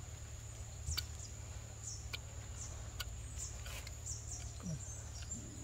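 Steady high-pitched insect drone with short chirps over it. A few faint clicks come from a hoof knife trimming an elephant's foot pad.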